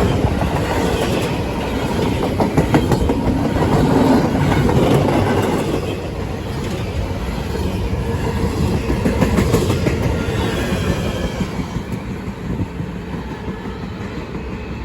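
Freight train of double-stack intermodal well cars rolling past at close range, a steady rumble with wheels clicking and rattling over the rail joints, easing off a little near the end.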